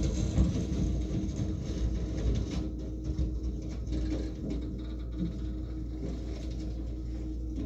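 Komatsu hydraulic excavator running steadily while its grapple crushes and tears apart an old speedboat hull, with scattered cracks and knocks of the boat breaking up.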